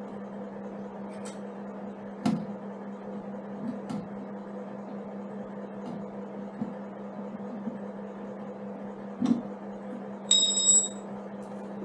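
Small metal brackets and fittings handled and fitted by hand to a motorcycle's frame: a few light knocks and clicks, then a brief ringing metal clink near the end. A steady low hum runs underneath.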